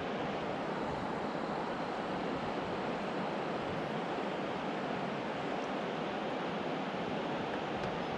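Steady rush of wind and water from a fishing boat underway on the lake.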